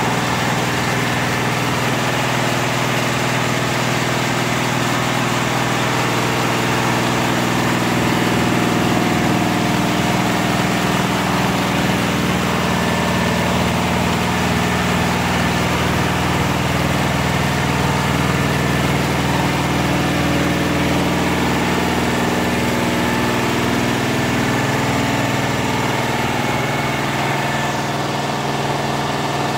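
Richpeace twelve-head flat embroidery machine running at a steady pace, its needle heads stitching in unison: a continuous, even mechanical hum and clatter. The machine is in a test run before shipment.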